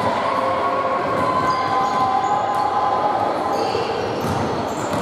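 Basketball game on a wooden sports-hall court: the ball bouncing on the floor amid players' footsteps, with short high squeaks, all echoing in the large hall.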